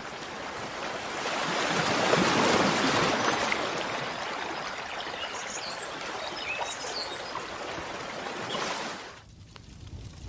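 Wood fire burning in a fireplace: a steady rushing hiss that swells about two seconds in, with scattered small crackles and faint squeaks. About nine seconds in the hiss drops sharply, leaving quieter crackles.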